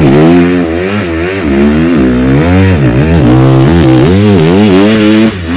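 Motocross dirt bike engine revving up and down over and over as it is ridden hard along a dirt track, loud throughout.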